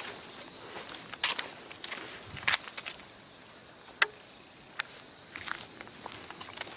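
A steady, high-pitched insect chorus, with irregular footsteps on a nature trail.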